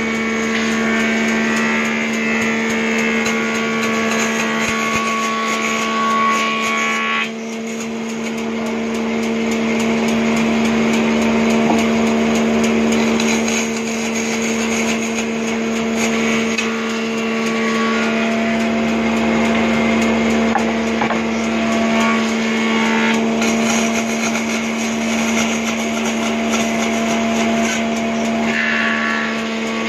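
Band saw running with a steady motor hum while its blade cuts through wooden planks. The higher cutting noise drops away about seven seconds in and comes back later, as the plank is fed through.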